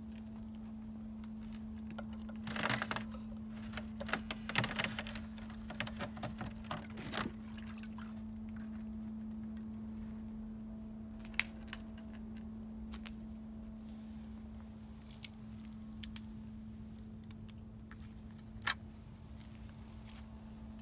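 A cat eating wet food from a plastic tub: a run of wet chewing and licking clicks for a few seconds, then a few scattered single clicks, over a steady low hum.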